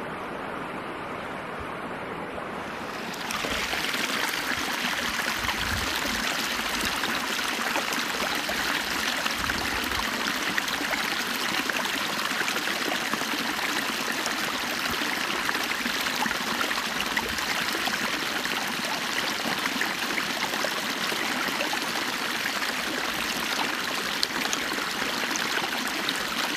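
River running steadily: an even rush of flowing water that steps up louder and brighter about three seconds in.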